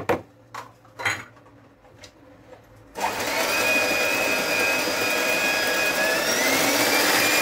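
Electric hand mixer switched on about three seconds in, its motor whirring steadily as the beaters whip an egg batter in a bowl; the pitch rises slightly near the end. A few light knocks before it starts.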